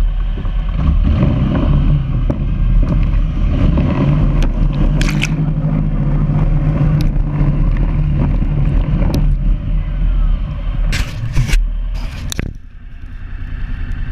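Off-road vehicle engine running steadily under throttle on a rough dirt trail, with sharp knocks and scrapes scattered through. Near the end the engine drops off suddenly, then builds up again.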